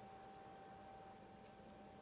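Near silence: room tone with a faint steady high hum and a few faint light ticks.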